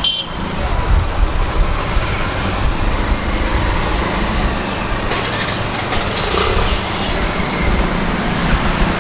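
Steady roadside traffic noise: a continuous rumble of passing vehicles.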